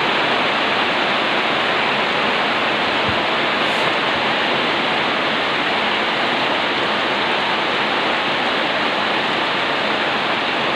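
Heavy rain falling, a steady even rush that does not change.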